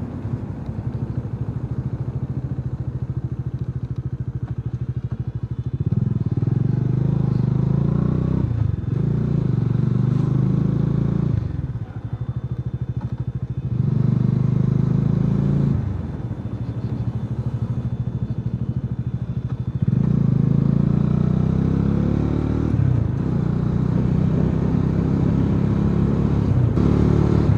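Motorcycle engine pulling up a steep hill road, revving up in several louder, rising pulls with brief drops in between as the rider changes gear or eases the throttle.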